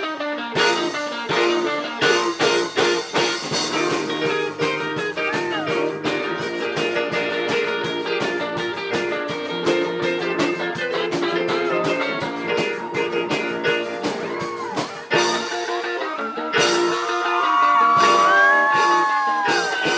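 A live rock-and-roll band plays with electric guitars and drums and a steady beat. After a brief break about fifteen seconds in, a lead electric guitar takes over with bent, sliding notes, and the music gets louder.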